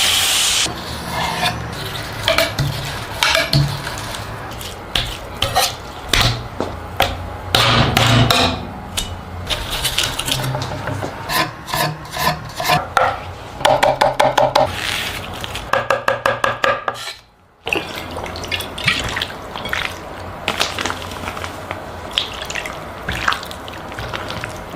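Kitchen prep sounds: utensils, dishes and containers knocking, clinking and scraping. Around the middle come a short pitched tone, then a quick run of the same tone repeated several times.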